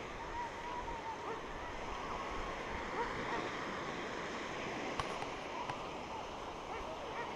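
Gentle surf breaking and washing over a shallow sandy beach, a steady hiss of sea noise, with faint distant voices.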